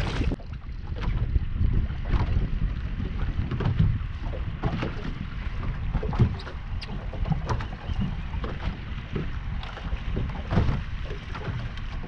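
Wind buffeting the microphone in a steady, gusting rumble, with scattered short knocks and slaps of small waves against the boat's hull.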